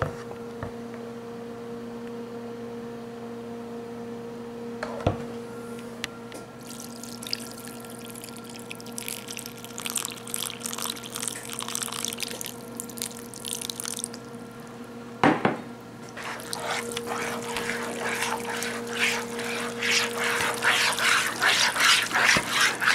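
Chicken broth poured from a measuring cup into a bowl of thick pot-pie filling, with a couple of knocks, then a spoon stirring the chunky wet filling against a plastic bowl in quick strokes, about three a second, growing louder toward the end. A steady low hum runs underneath.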